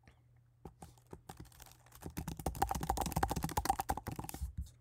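Typing on a computer keyboard: a few scattered keystrokes at first, then a fast run of typing from about two seconds in that stops shortly before the end.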